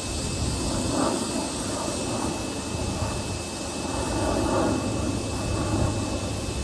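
Pressure washer running steadily, with a constant high whine over its spray noise.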